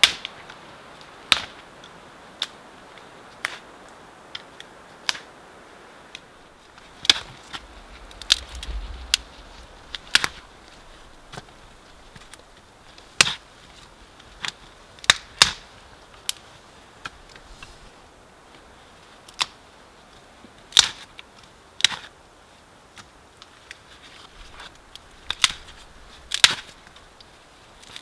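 Dry twigs snapping by hand one after another, sharp cracks at irregular intervals of a second or two, as thin sticks are broken into kindling.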